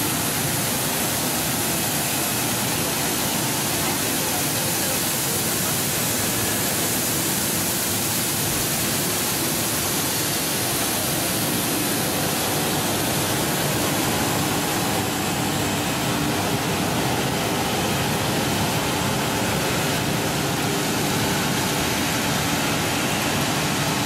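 Industrial tomato washing machine running: a steady rush of water from spray nozzles and a bubbling wash tank, with the machine's motor running underneath.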